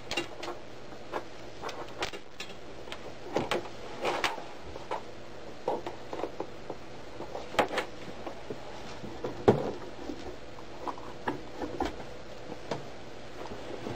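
Scattered light clicks and knocks at irregular intervals, the sharpest about nine and a half seconds in, over a faint steady low hum.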